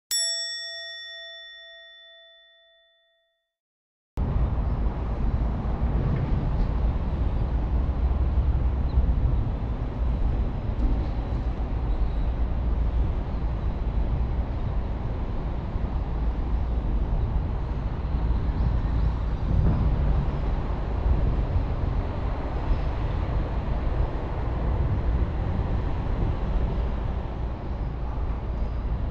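A single bell-like chime rings out and fades away over about three seconds. After a second of silence, steady outdoor background noise with a heavy low rumble runs on.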